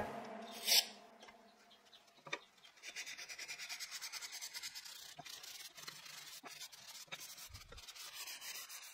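Hand-sanding a wooden frame: sandpaper rubbed back and forth along the wood in quick even strokes, about four a second. A short sharp knock comes near the start, the loudest sound here.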